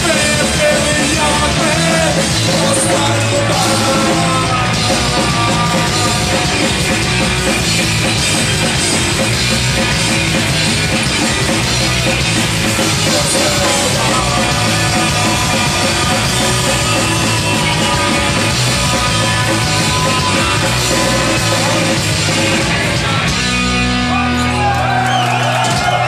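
A punk rock band playing loud and live, with electric guitar, bass and drums under shouted vocals.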